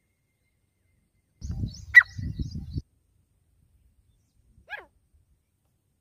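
Short animal calls: a sharp, loud high note about two seconds in over a brief low rumble with faint high chirps, then a quick falling call near the five-second mark.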